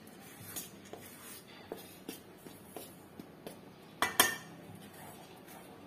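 A metal spoon scraping and clinking against a stainless steel bowl while stirring flour. There are a couple of louder clinks about four seconds in, as a second steel bowl of flour is tipped against it.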